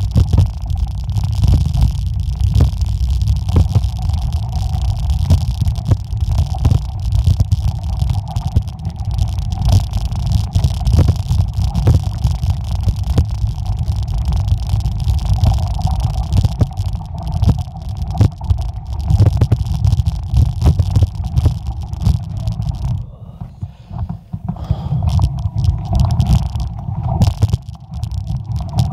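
Mountain bike riding over a gravel forest road: a heavy low rumble on the microphone with frequent clicks and rattles as the bike goes over the rough surface. The rumble drops away for a second or two about three-quarters through.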